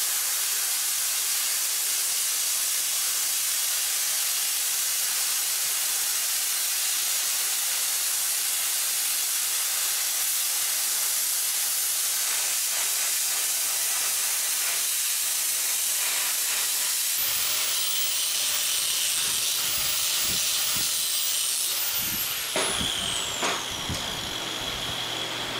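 Plasma cutter cutting 1/8-inch steel plate: a loud, steady hiss of air and arc. About 17 seconds in it stops, and from about 22 seconds a few sharp knocks follow, a hammer striking a cut piece held in a vise.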